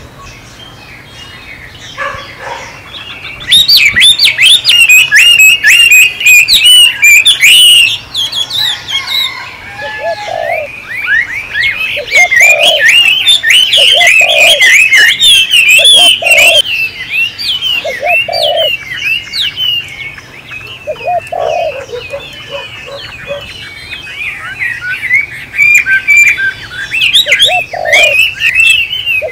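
Several small songbirds chirping and twittering in a busy chorus, loudest between about four and eight seconds in. From about ten seconds in, a lower-pitched bird adds a short hooting note every two seconds or so.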